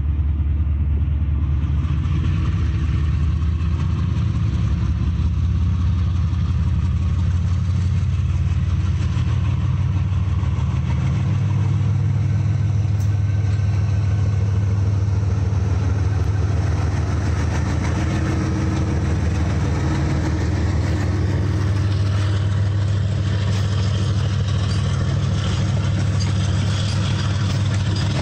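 Multi-unit diesel locomotive consist, including a GE WDG-4G, passing close by at the head of a freight train. Its engines give a loud, steady low drone that changes note about eleven seconds in. In the second half, wheels clatter and rumble over the rails as the wagons roll past.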